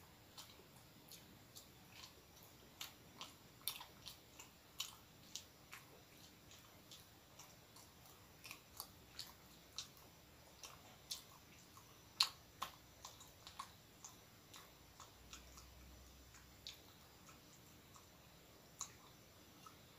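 A man chewing a mouthful of soft filled bread roll with his mouth closed: faint, irregular mouth clicks, about one or two a second, one louder click about halfway through.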